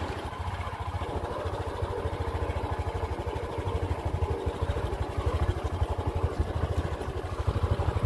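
A vehicle engine running steadily, with a fast low pulsing rhythm and a rushing noise over it, growing a little louder in the second half.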